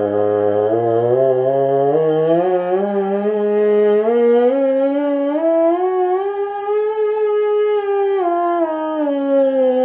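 Bass trombone mouthpiece buzzed on its own, playing a major scale: a buzzy pitched tone stepping up note by note over about two octaves, then stepping back down.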